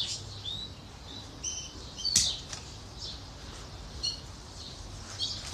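Small birds chirping nearby: short, high chirps repeated every second or so, with one sharp click about two seconds in.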